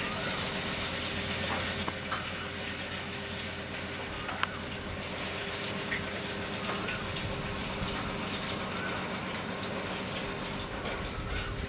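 Steady background rumble and hiss with a low hum and a faint steady tone, broken by a few faint ticks, the sharpest about four and a half seconds in.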